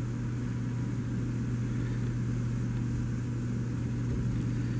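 Steady low hum over a faint even hiss, a constant background drone like a motor or appliance running, with no other distinct sound.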